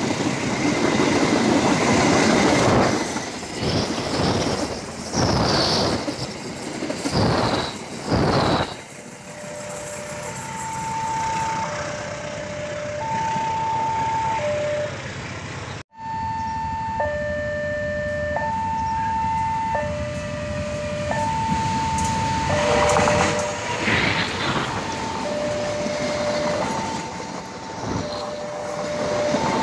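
An Indonesian passenger train passing close by, its wheels and coaches rumbling and clattering in loud swells for the first several seconds. From about ten seconds in, a level-crossing warning alarm sounds: an electronic two-tone signal alternating a higher and a lower note, warning that a train is approaching. Further train noise swells in the latter part as the next train comes through the crossing.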